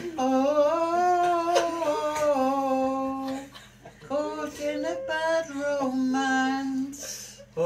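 A woman humming a melody in two long phrases, with a short break about halfway.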